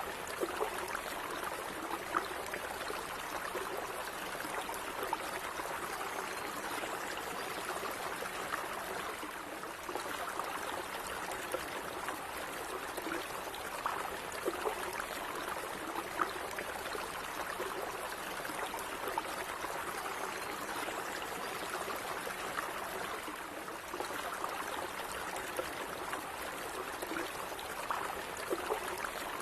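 A small stream of water running and trickling over stones, steady and even, with little splashes and gurgles.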